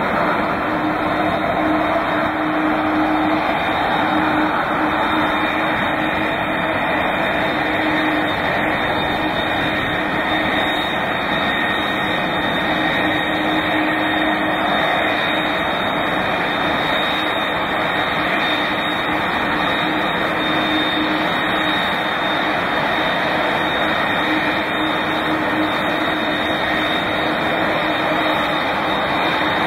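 McDonnell Douglas MD-11 airliner's three jet engines running at taxi power: a steady rush of jet noise with a held high whine and a lower hum that comes and goes.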